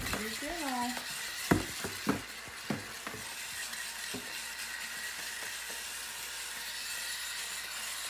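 A few sharp knocks and scuffs of a cardboard box being handled on a hardwood floor, the loudest about a second and a half in, over a steady hiss. A short wavering cry comes about half a second in.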